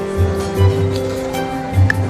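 Background music: held chords over a low bass line.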